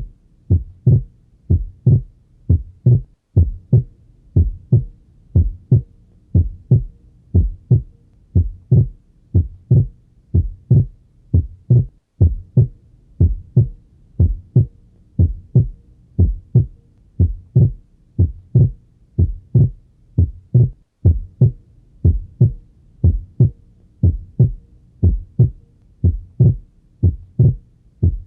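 Normal heart sounds heard through a stethoscope at the pulmonic area: a steady lub-dub, a little more than one beat a second. The second sound splits into two close components, aortic then pulmonary, on inspiration and is single on expiration. This is physiological splitting of S2.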